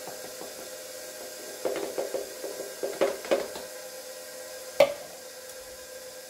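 KitchenAid stand mixer running steadily at low speed with its dough hook, a constant hum, as flour goes into the bowl. A run of light clattering knocks comes in the middle, then one sharp knock about five seconds in as the plastic measuring cup is set down on the stone countertop.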